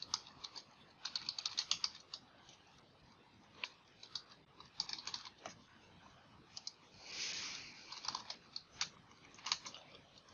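Typing on a computer keyboard in short bursts of quick keystrokes, with a brief soft hiss about seven seconds in.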